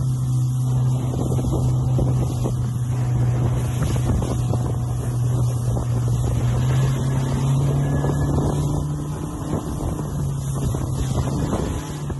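Outboard motor of a chase boat running at steady speed, a low steady drone that rises slightly in pitch for a moment about eight seconds in. Wind buffets the microphone and water rushes past the hull.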